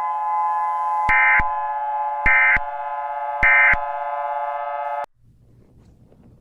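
Three Emergency Alert System end-of-message data bursts, short electronic screeches about a second apart, marking the end of the alert, over a steady sustained electronic chord. Both stop suddenly about five seconds in.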